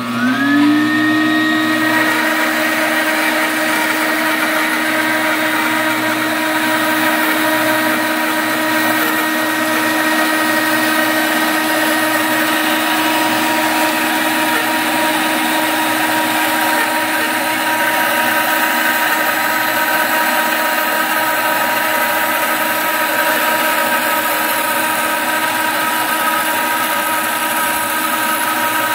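Bandsaw cutting through a log, its 3/8-inch blade running at low tension with no upper guides. The motor and blade run steadily with a whine that rises slightly in pitch over the first second or two, under the steady noise of the cut.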